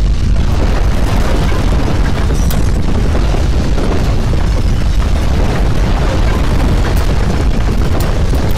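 Loud, continuous deep rumble with a rushing noise over it, the sound of strong earthquake shaking. A few faint sharp ticks can be heard on top.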